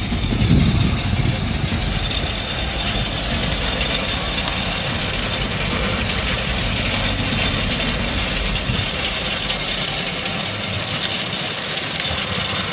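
A heavy machine's engine running steadily under dense mechanical noise, with a heavy low thump about half a second in.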